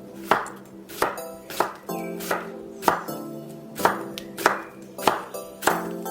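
A knife chopping ripe kimchi on a cutting board, about nine sharp knocks at a slightly uneven pace, over light background music.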